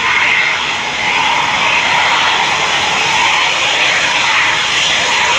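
Boeing KC-767J's twin General Electric CF6 turbofans running at low taxi thrust: a steady jet hiss and whine with no change in power.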